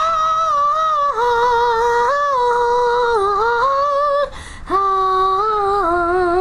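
A high-pitched voice singing or humming long held notes that step up and down, with a short break for breath a little after four seconds.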